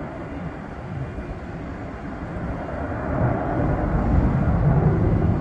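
Jet noise from McDonnell Douglas F-15C Eagles, a deep continuous rumble with a ragged, crackling texture, growing louder from about three seconds in.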